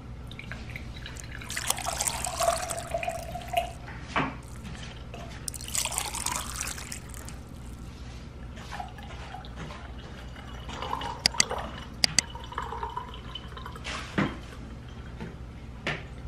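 Water poured into a glass twice, about two seconds each, splashing with a tone that rises as the glass fills; several short sharp clicks follow.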